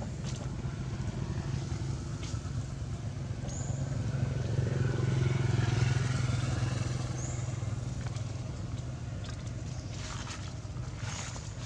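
A motor vehicle's engine running steadily, growing louder to a peak about halfway through and then fading away.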